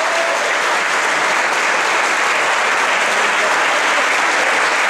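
Audience applauding steadily, greeting the announced result of the fight.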